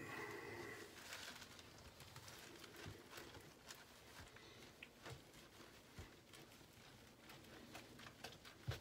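Wooden spoon stirring flour into dough in a stainless steel mixing bowl: faint scraping with soft taps against the bowl, and one louder knock near the end.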